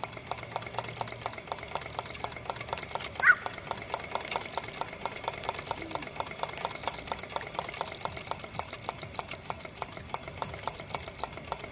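Homemade wood-fired hot-air Stirling engine running a generator under the load of a lamp, its mechanism making an even, rapid clicking. A brief high chirp sounds about three seconds in.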